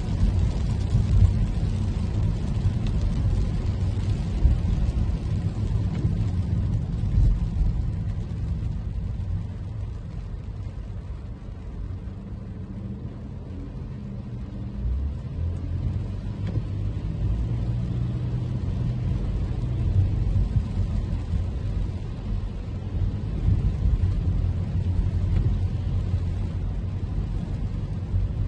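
Toyota Camry driving in the rain: a steady low rumble of tyres on wet road and engine, easing a little for a few seconds partway through.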